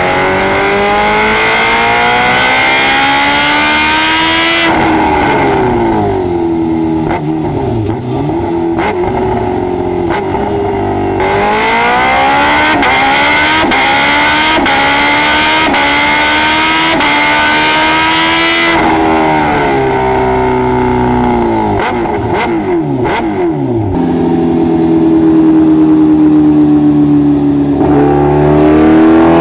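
Kawasaki Ninja H2R's supercharged inline-four engine run hard on a dynamometer, its pitch climbing in long pulls through the gears and falling away as the throttle closes, several times over. Sharp pops come as the revs fall.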